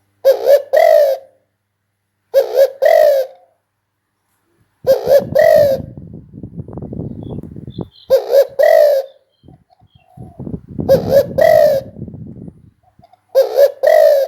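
Spotted dove cooing: six loud phrases of two or three coos each, repeated every two to three seconds. A low rushing noise comes in twice between the phrases.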